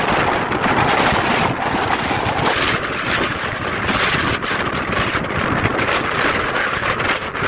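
Strong mountain wind buffeting the camera's microphone: a loud, steady rumble and hiss of wind noise that swells and eases in gusts.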